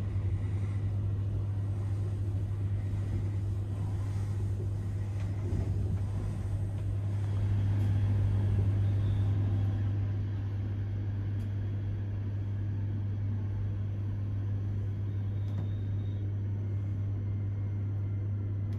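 Steady low hum and rumble inside a passenger train carriage under way. It swells slightly about eight seconds in, then settles.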